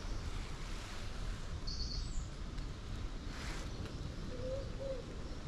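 Outdoor ambience: a steady low rumble, with a brief high bird chirp about two seconds in and a short hiss a little after three seconds. A faint wavering call starts near the end.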